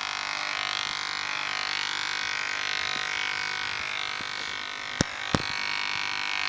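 Cheap electric hair clipper running steadily as it cuts hair, its buzz shifting as it moves through the hair, with two sharp clicks about five seconds in.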